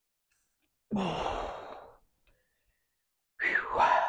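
A man's heavy sigh: a long noisy breath out about a second in, then a short strained voiced exclamation near the end. This is the breathing of effort while straining with a landing net that holds a heavy carp.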